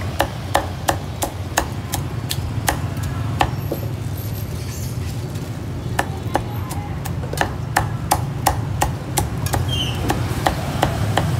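A cleaver chopping roast pork on a board in a quick, uneven run of sharp chops. The chops thin out briefly around the middle, then come fast again, over a steady low hum.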